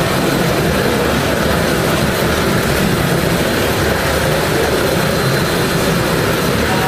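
Steady machine noise from a stretch wrapping turntable rotating a pallet while its film is wound onto the load, running evenly throughout, mixed with factory hall hum.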